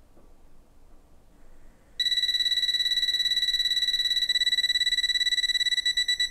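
A TOPTES PT520A combustible gas leak detector sounds its alarm as it picks up gas from a stove burner that has just been turned on. About two seconds in, a loud, steady, high-pitched beep tone starts abruptly, and near the end it breaks into rapid beeping, about five beeps a second.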